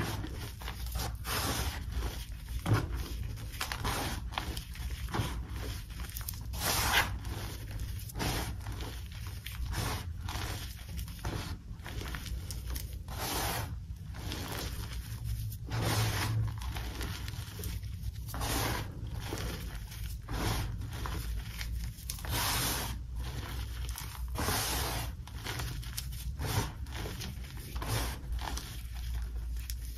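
Hands squeezing and pressing into loose blue-dyed gym chalk powder, giving soft, dry, squeaky crunches at irregular intervals, roughly one a second.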